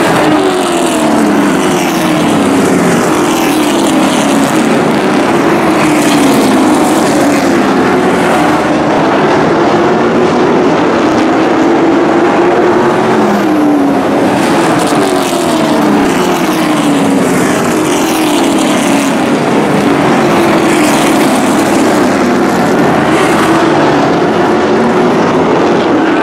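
Several race trucks' engines running hard around an oval, passing one after another, each pass sliding down in pitch as it goes by.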